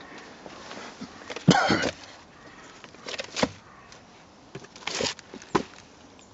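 Spent cardboard firework cakes being moved by hand: a loud scrape about one and a half seconds in, then a few shorter knocks and rubs.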